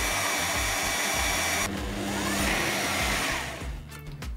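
Bosch kitchen machine's blender jug running at speed, blending milk, strawberries, ice cream and crushed ice into a smooth milkshake. The motor whirs steadily, dips briefly about a second and a half in, and winds down near the end.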